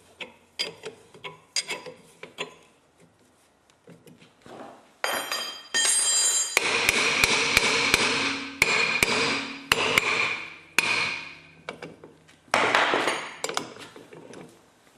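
Hammer strikes on steel as a seized wheel hub is worked off its axle stub with a hub puller: scattered sharp taps, then a long spell of rapid blows with metallic ringing from about five to eleven seconds in, then a few more knocks. The hub is tighter than usual.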